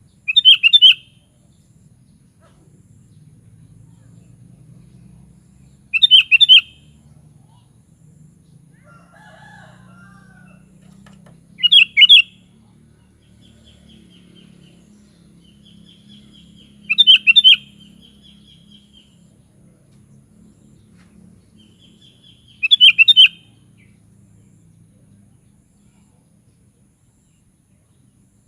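Sooty-headed bulbul (kutilang) singing a short, loud, bubbling phrase five times, about every six seconds, with softer trilling notes in between.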